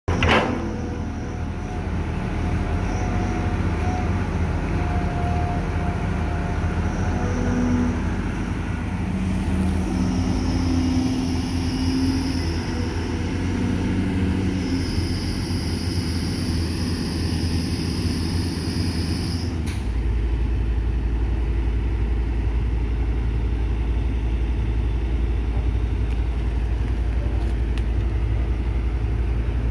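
CAT hydraulic excavator's diesel engine running steadily under load as it digs soil. About two-thirds of the way through the sound changes to a steadier, deeper drone.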